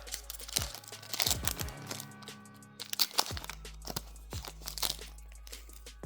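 Yu-Gi-Oh booster pack wrapper crinkling and tearing as it is opened, in sharp crackles, over background music.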